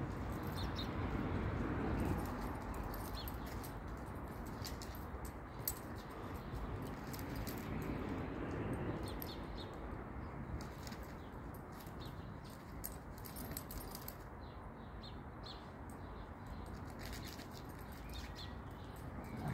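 Scattered light clicks and jingling from two playing dogs, an Alaskan Malamute and an Australian Shepherd puppy: collar tags, leash hardware and claws on concrete pavers. Heard over a steady low background hiss.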